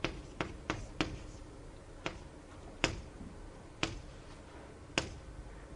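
Writing on a board: about eight sharp, irregular taps spaced half a second to a second apart.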